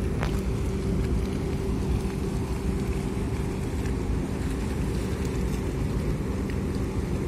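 Ferry engines running with a steady low drone and a held hum, over churning harbour water.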